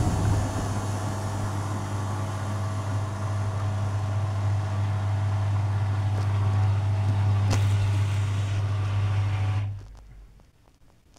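Arçelik 7103 washing machine humming steadily, a low mains-motor drone. The hum cuts off suddenly near the end, leaving a few faint clicks.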